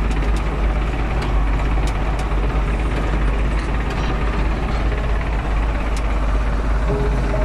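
Belarus MTZ 1221.2 tractor's six-cylinder diesel engine running steadily, heard from inside the cab, with a few sharp clicks over it.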